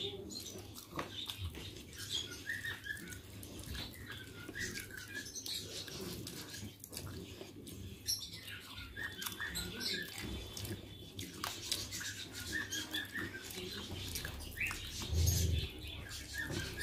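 Close-up eating sounds: fingers squishing and mixing soft rice on a metal plate, with wet chewing and lip smacks in many small clicks. A low thump about a second before the end.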